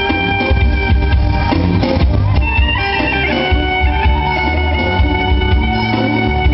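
A live electric band playing: drum kit and a heavy bass beat under electric guitar and keyboards, with a wind instrument carrying a sustained melody.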